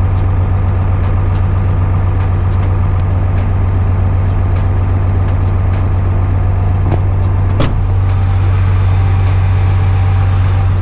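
LMTV military truck's diesel engine running steadily while the central tire inflation system reinflates the tires to highway pressure. The quick release valve is not heard venting, a sign that the CTIS fault is not showing at this moment. A short knock comes about three-quarters of the way through.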